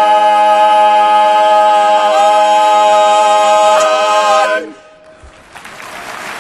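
Barbershop quartet of four male voices holding the final chord of a song in close a cappella harmony, with small pitch moves in the upper voices twice. The chord cuts off about four and a half seconds in, and an audience starts applauding about a second later.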